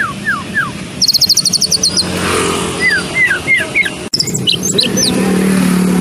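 White-rumped shama singing: a run of clear whistled notes that each slide down, a fast high trill about a second in, then more falling whistles. A steady low motor hum runs underneath.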